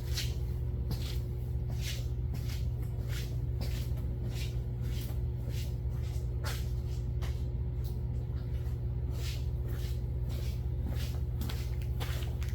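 Scattered light clicks and taps of carburetor parts being handled on an open 2150 carburetor, over a steady low hum.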